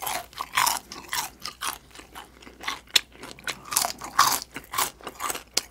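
Crisp crunching of deep-fried chicken skin being chewed with the mouth close to the microphone, a run of sharp crunches about two to three a second.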